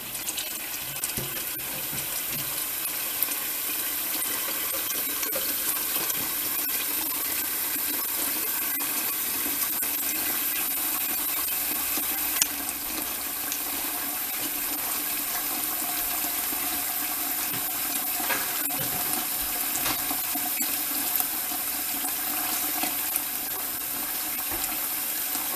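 Kitchen faucet running a steady stream of water into a stainless steel pot of dry lima beans and ham hock, filling it.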